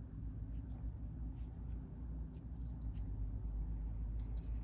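Faint handling noise: light clicks and scrapes of plastic board-game miniatures being picked up and moved about, over a low steady hum.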